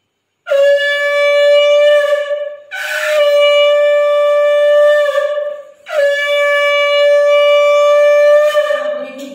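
Conch shell (shankha) blown in three long blasts, each a steady held note; the second begins with a breathy rasp, and the last tails off near the end.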